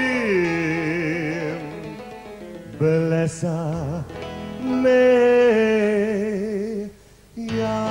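A solo voice singing a slow song: long held notes with wide vibrato, the pitch sliding down between phrases. There is a brief pause near the end before the singing resumes.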